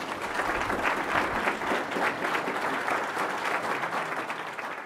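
Audience applauding steadily after a speech, fading down near the end.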